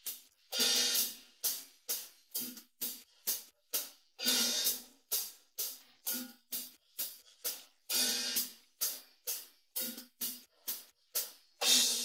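Isolated cymbal track from a rock drum-kit recording: short cymbal strokes about three times a second, with a louder, longer-ringing cymbal crash about every four seconds.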